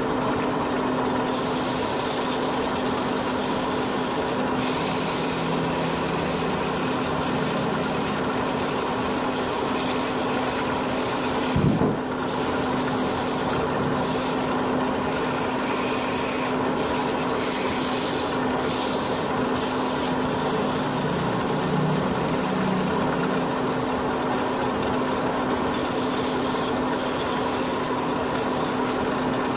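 Wood lathe running steadily while the spinning wooden workpiece is hand-sanded: a continuous rasping rub of sandpaper on wood over the steady hum of the lathe motor. A single brief knock about twelve seconds in.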